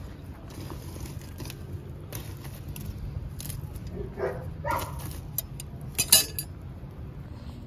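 Metal fire tongs clinking and scraping against burning wood and embers in a clay stove's firebox as the fire is rearranged, with a few short clinks about four seconds in and sharper clicks around six seconds in.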